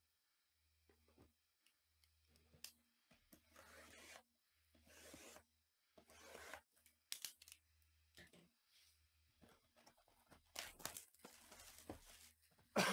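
Clear plastic shrink-wrap being torn and peeled off a sealed trading-card box, in a series of short rips, the loudest near the end.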